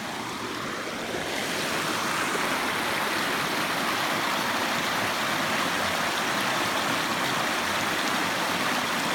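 Steady rush of a shallow mountain creek flowing over rocks, growing a little louder about a second in and then holding even.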